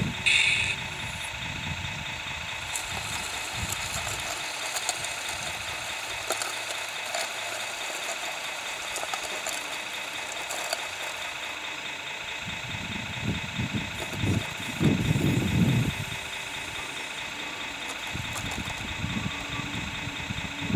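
Small electric motors whining steadily at a high pitch, with light rattling and spells of louder low rumble about two-thirds of the way through.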